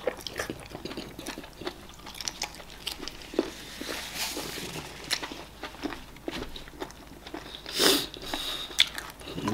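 Close-miked wet chewing and lip-smacking of people eating eba and okra soup by hand, a run of small clicky mouth sounds. About four seconds in a soft rustling hiss as a paper napkin is wiped over a face, and near the end a short, louder rush of noise.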